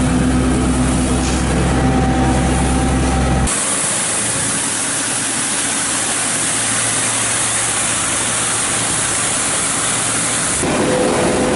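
A truck engine runs with a steady hum as a worker hoses the road. About three and a half seconds in, it gives way to the steady hiss of a road sweeper's rotating side brush scraping the asphalt. Near the end a tractor engine is running.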